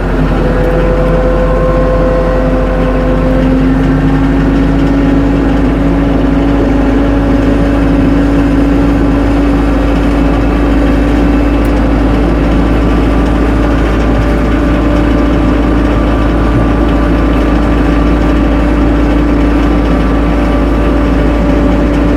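Tractor engine running steadily at working revs, with a steady whine over it that climbs slightly in pitch in the first few seconds and then holds.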